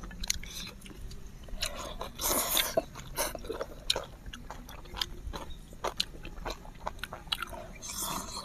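Close-miked eating of spicy instant noodles: wet chewing and mouth clicks, with noodles slurped about two seconds in and again near the end.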